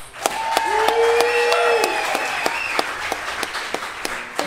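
Studio audience applauding a musical act as it is introduced, dense clapping with voices cheering, one holding a long whoop in the first two seconds.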